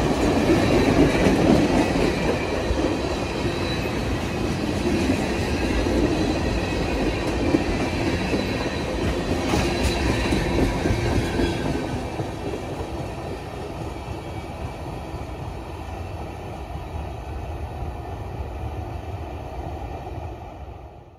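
Cars of a Norfolk Southern freight train rolling past with clacking wheels and some high, thin wheel squeal. The sound eases somewhat after about twelve seconds, then cuts off suddenly at the end.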